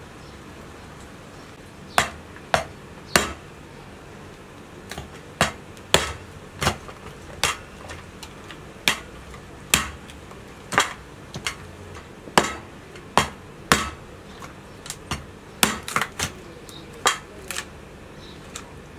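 Knife chopping boiled lamb-head meat on a metal tray: sharp, irregular knocks of the blade striking the tray, about one or two a second, starting about two seconds in.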